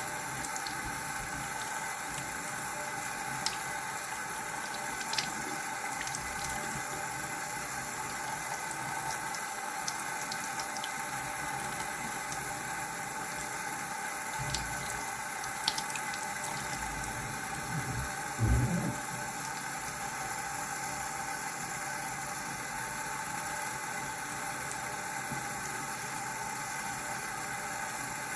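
Water running steadily from a tap into a sink, with a few light clicks and one dull bump about two-thirds of the way in.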